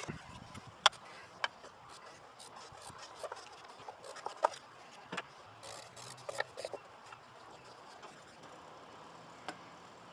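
Band-style oil filter wrench being fitted and worked on a cartridge oil filter cap: scattered sharp clicks, knocks and faint scraping, the strongest about a second in and a cluster of several around the middle.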